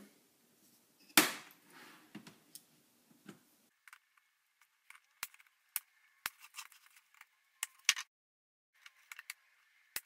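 Plastic retaining clips of a laptop's bottom case snapping apart as a screwdriver pries along the seam: one sharp snap about a second in, then a string of lighter plastic clicks and taps as the tool works along the edge.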